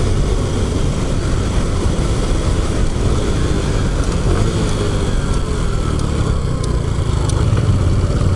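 Honda Super Cub's small single-cylinder four-stroke engine running as the bike rides along, with wind rushing over the microphone. The engine pitch falls in the middle and its beat grows plainer near the end as the bike slows.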